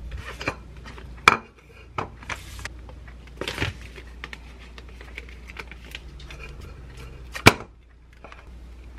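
Packaging being handled on a countertop: a paper sleeve rustling as it slides off a plastic yogurt cup, with light clicks and taps of plastic, and one sharp knock about seven and a half seconds in as the cup meets the plastic bowl.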